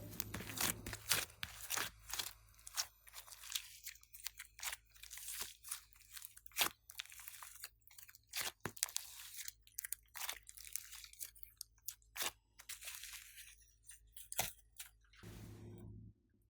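Slime being squeezed and kneaded by hand, giving an irregular run of sharp pops and crackles, several a second, between stretches of soft squishing hiss.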